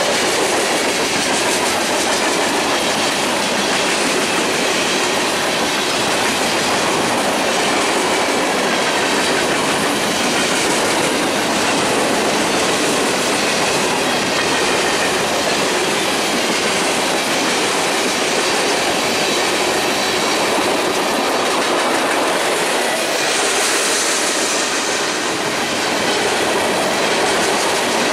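Freight cars of a passing mixed freight train, gondolas, boxcars and tank cars, rolling by at close range: a steady noise of steel wheels running on the rails. A brief patch of high hiss comes near the end.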